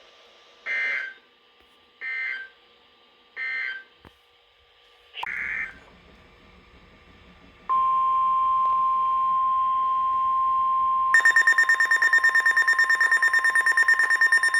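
NOAA Weather Radio alert sequence: short buzzy SAME data bursts repeated several times, then the steady 1050 Hz warning alarm tone from about 8 s in, which signals that a warning follows. About 11 s in, a rapid pulsing alarm beep joins the tone.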